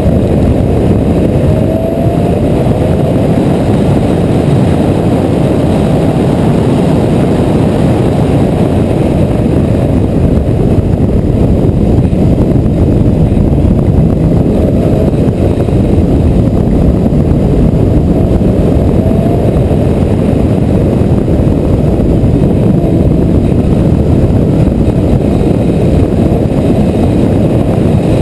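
Porsche 911 GT3 flat-six engine running hard at track speed, heard from the onboard camera mixed with heavy wind and road noise. Its pitch climbs in short sweeps several times as it pulls through the gears.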